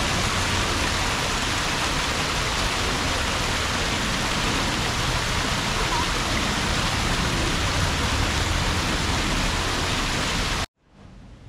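Steady, even rush of falling water. It cuts off abruptly near the end, leaving a much fainter hiss that begins to rise.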